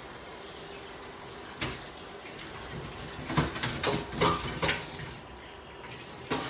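Kitchen clatter over a steady hiss: one knock about a second and a half in, then a quick run of sharp clinks and knocks for about a second, and one more knock near the end.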